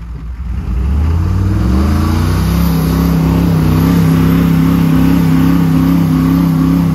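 Truck engine revving up over about two seconds, then held at high, steady revs under load while a squarebody Chevy Blazer is being pulled out of deep snow on a stretchy recovery rope.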